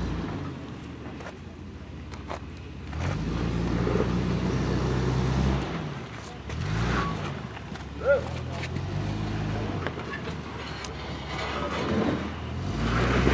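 Toyota Land Cruiser FZJ80's 4.5-litre straight-six engine revving in repeated surges as it crawls up over boulders, with a few light knocks and a brief sharp sound about eight seconds in.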